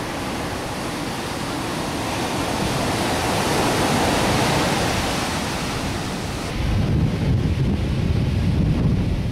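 Atlantic surf breaking on a sandy beach, a steady rushing wash of waves that swells in the middle. About two-thirds of the way through it gives way to gusty wind buffeting the microphone.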